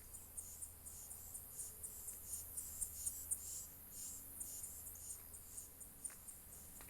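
Insects chirping in the countryside: a steady high-pitched buzz with short, regular chirps about four times a second.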